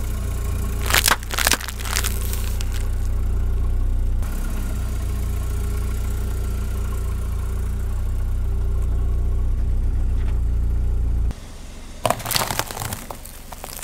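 Car engine idling low and steady close to the ground while a tyre rolls over and crushes small objects. There is sharp crackling about a second in, as wrapped sweets are flattened. The engine hum cuts off suddenly about 11 seconds in, followed near the end by a cluster of crunches from a stack of crackers being crushed.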